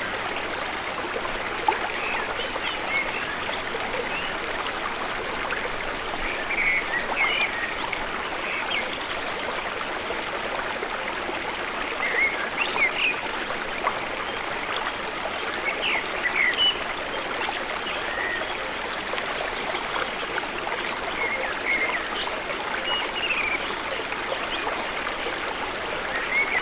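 Steady rush of river water flowing, with short bird chirps scattered over it.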